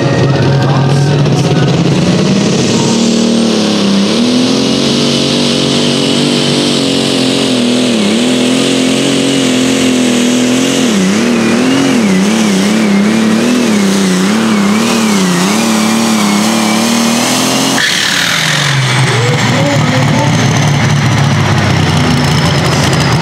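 John Deere super stock pulling tractor launching and pulling the sled under full throttle. Its engine climbs to a high, wavering note as it works down the track, then is cut sharply about three-quarters of the way in, and a high whine winds down after it.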